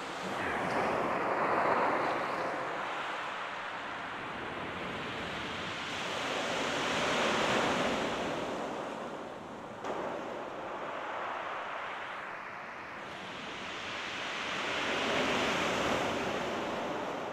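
Sea waves breaking and washing up the shingle beach, the surf swelling and fading three times, about every six to eight seconds.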